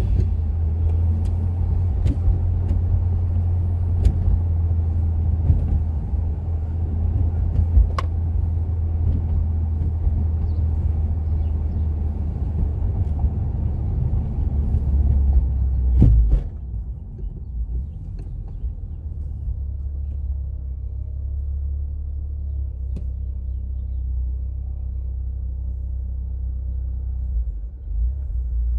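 Mitsubishi Lancer Evolution X's turbocharged four-cylinder engine and road noise while driving: a steady low rumble. A sharp knock comes about 16 seconds in, after which the sound settles quieter.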